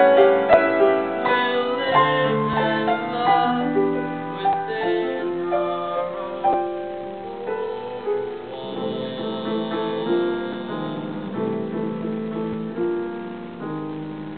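Grand piano playing a solo passage of held notes and chords, growing gradually softer. The sound is muffled, with no treble, as heard through a low-quality camera microphone.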